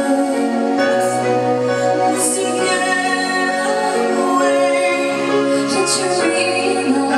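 Music: a slow, tender song with held sung notes over accompaniment.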